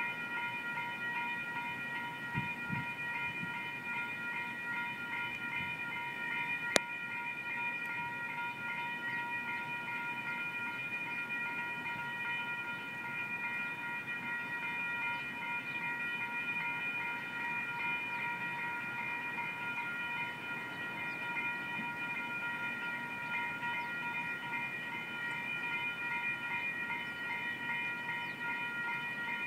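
Railroad grade-crossing warning bell ringing continuously with rapid, evenly repeated strokes as the crossing signals flash for an approaching train. A single sharp click about seven seconds in.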